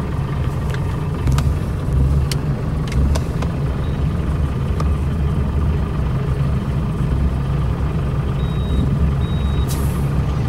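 Car tyre being checked and filled at an air station: a steady low machine rumble with scattered sharp clicks, a few short high beeps about the inflator, and a brief burst of air hiss near the end.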